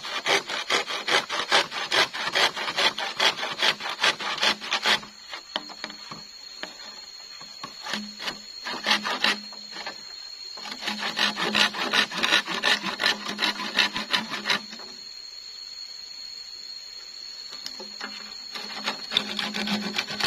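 Hand saw cutting through a bamboo pole in quick back-and-forth strokes. The sawing comes in three bouts: a long one at first, another after a pause of several seconds, and a short one near the end.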